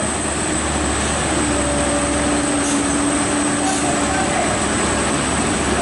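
Steady rumble of heavy vehicle engine noise with a low hum, and a faint whine held for a few seconds in the middle.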